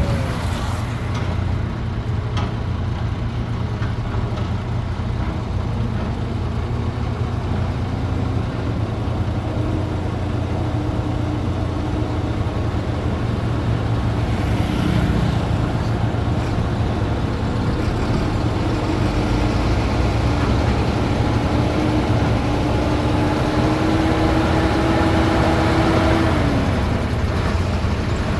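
Diesel engines of heavy construction machinery (excavators and dump trucks) running: a steady low drone that grows louder over the second half, with a thin whine that holds, rises slightly and stops near the end.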